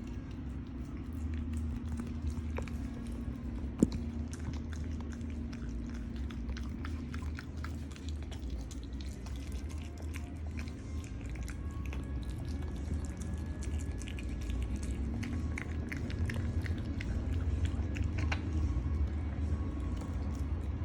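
A miniature dachshund chewing and biting chicken: irregular wet clicks and crunches, with one sharper crack about four seconds in, over a steady low hum.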